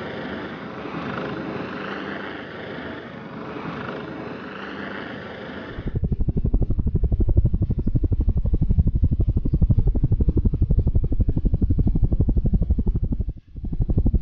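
A steady rushing noise, then about six seconds in a helicopter's rotors start to chop, loud and close, in a fast, even low beat that drops out briefly near the end.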